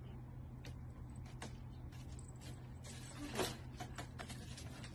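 Quiet room with a steady low hum; a cat moving about on a wooden floor makes a few light taps and a soft thud about three and a half seconds in.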